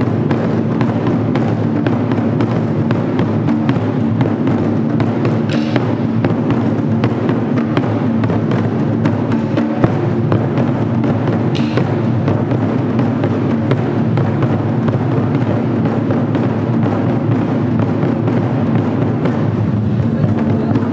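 Japanese taiko drums being played by an ensemble: a dense, even stream of stick strikes on a large tacked-head barrel drum (nagado-daiko) and smaller drums, with a deep booming tone.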